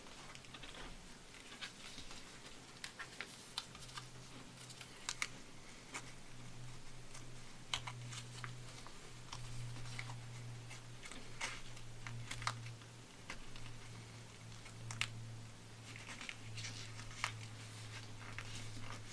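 A sheet of paper being folded and creased by hand: soft rustling with scattered light clicks and taps as fingers press the folds flat, over a steady low hum.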